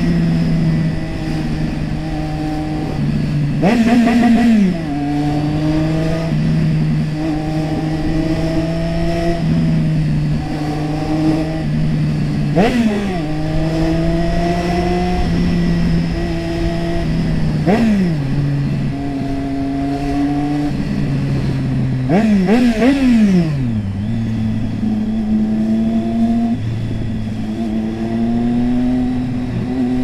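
Triumph Street Triple 675R's 675 cc inline three-cylinder engine running under way at steady revs, with four quick throttle blips where the revs shoot up and drop straight back. The last blip is a double near the end, after which the engine settles a little lower.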